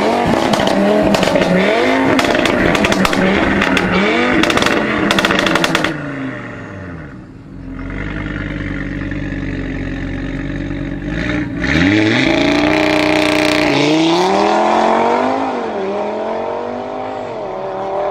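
Audi RS3 8V's turbocharged 2.5-litre five-cylinder engine through a decatted valved exhaust, revving hard and falling back repeatedly with sharp crackles in the first half. After a short lull it revs up steeply and accelerates hard through several gear changes, fading near the end as it pulls away.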